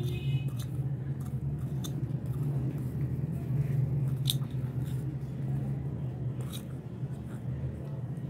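Chopped onion being tipped and scraped into a glass bowl of grated potato, with a few light clicks and taps, over a steady low hum.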